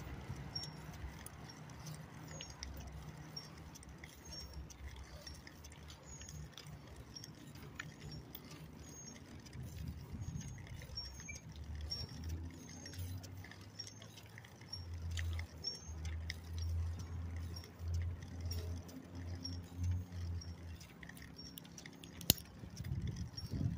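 Riding noise from a moving bicycle: a low rumble that swells in gusts from about halfway through, with a faint, high, short squeak repeating roughly every half second and some light rattling. A single sharp click comes near the end.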